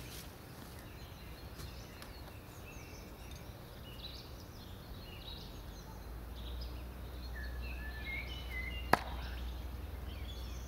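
Small birds chirping over a low outdoor rumble, then one sharp thunk about nine seconds in: a stainless-steel Profi throwing knife, thrown with a half turn, striking the wooden target.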